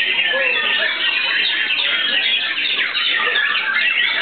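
White-rumped shamas singing loudly and without pause, several birds' songs overlapping in a dense stream of quick whistles, trills and chirps.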